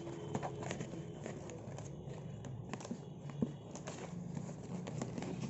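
Headphone packaging and parts being handled: scattered light clicks, taps and rustles over a steady low background hum.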